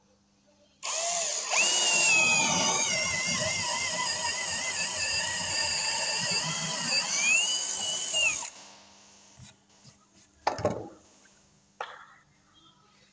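Cordless drill boring a hole into a wooden plank, its motor whine wavering as the bit loads up in the wood; it starts about a second in and stops after about seven and a half seconds. A short sharp noise follows a couple of seconds later.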